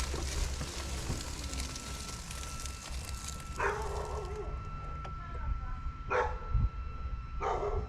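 A dog barking three times, a couple of seconds apart.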